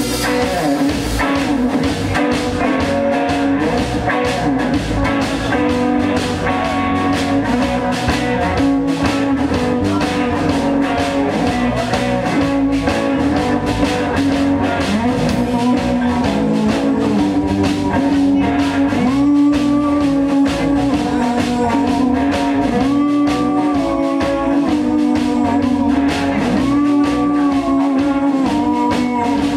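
A live band plays a bluesy rock instrumental with electric guitar, bass and drum kit, and sustained melodic lead lines over a steady beat.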